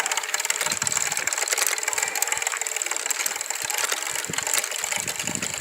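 Homemade plastic-bottle 'exhaust' on a moving bicycle, its flap struck by the spokes in a rapid clicking rattle that imitates a small motorbike engine.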